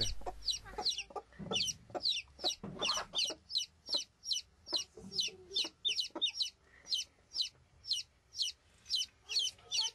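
Newly hatched chicks peeping over and over in short, high chirps that slide down in pitch, about two or three a second, growing quicker near the end. The mother hen clucks low and softly a few times in among them.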